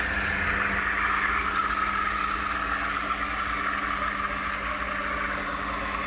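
Reneka espresso machine's automatic steam wand frothing milk while the machine extracts a double shot: a steady steam hiss over a low machine hum.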